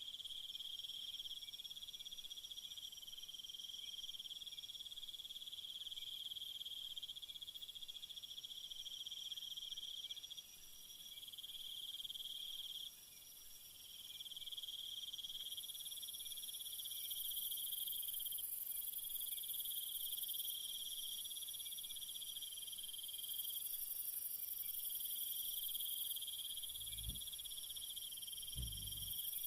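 A steady, high-pitched chorus of night insects chirring without a break, several callers overlapping and taking over from one another every few seconds. Two brief low thumps come near the end.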